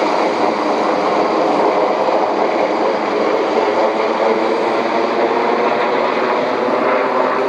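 Sikorsky UH-60A Black Hawk helicopter flying low overhead. Its rotor and twin turboshaft engines make a loud, steady noise with a fast, even rotor beat.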